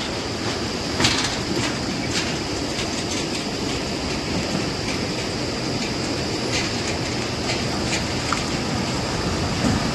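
Slow road traffic crossing a muddy, waterlogged bridge: a pickup and then a hatchback roll through, with a steady rumble of engines and tyres on the wet, rough surface and a few sharp knocks along the way.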